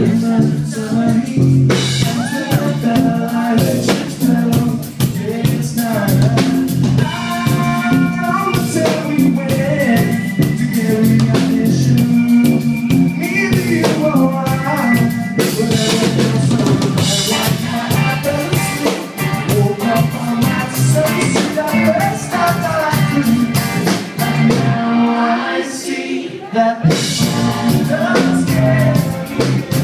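A rock band playing live in a funky arrangement, with drum kit, bass and singing. Near the end the bass and cymbals drop out for a couple of seconds before the full band comes back in.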